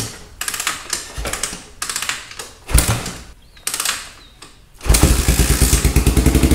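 Honda ATC 350X three-wheeler's single-cylinder four-stroke engine being kick-started: four kicks, then it catches about five seconds in and runs with a steady, fast beat. This is its first start on a freshly fitted reconditioned Keihin carburettor.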